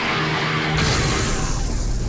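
Instrumental rock/metal music led by guitar, with no vocals.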